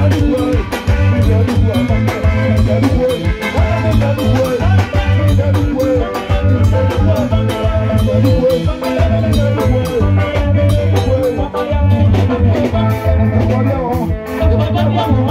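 Live highlife band music: drum kit, electric guitars and bass playing a steady dance beat.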